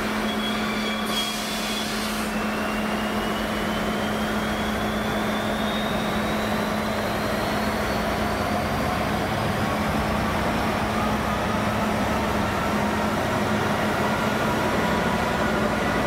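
Freightliner Class 66 diesel-electric locomotive approaching slowly with a container train, its EMD two-stroke engine throbbing louder toward the end over a steady hum. There is a brief hiss about a second in, and a faint high whine that rises slowly in pitch.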